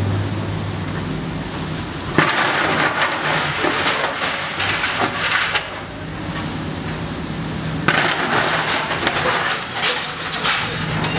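Excavator engine running steadily underneath, with two long stretches of crunching and clattering, about two seconds in and again near the end, as the bucket breaks down through corrugated roofing and its frame.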